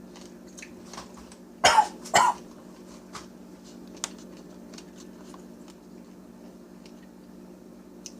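A man coughs twice in quick succession about two seconds in, reacting to the heat of a scorpion pepper he has just bitten into. Faint clicks and a steady low hum run underneath.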